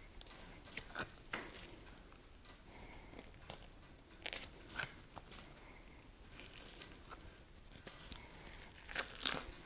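Faint, scattered soft clicks and tearing as a knife slices and gloved hands pull a deer's backstrap loose from along the backbone and rib cage.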